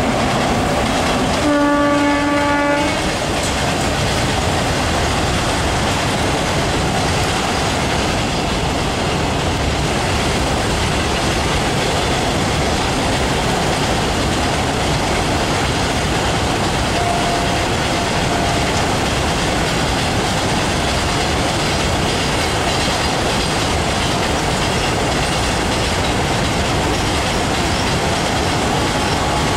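An electric locomotive's horn sounds once near the start, a single blast of about a second. Then a long freight train of covered cement wagons rolls steadily past close by, its wheels clattering over the rail joints.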